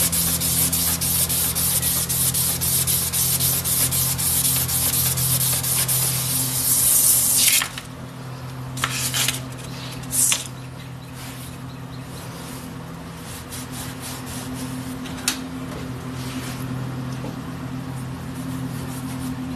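A strip of 1000-grit abrasive cloth pulled rapidly back and forth around a Ford 460 crankshaft journal, a continuous rasping rub of fine-grit polishing that stops abruptly about seven and a half seconds in. A few short scrapes and handling sounds follow over a steady low hum.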